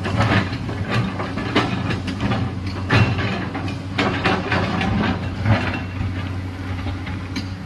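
Excavator's diesel engine running steadily under load, with repeated irregular clanks and scraping as the bucket digs into rock and soil on a hillside cut.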